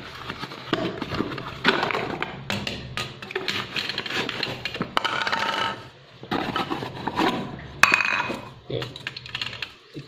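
Unpacking a liquid level switch and its plastic float bottles from a cardboard box: cardboard rustling and scraping, with light knocks of plastic parts on the table and a sharper click about eight seconds in.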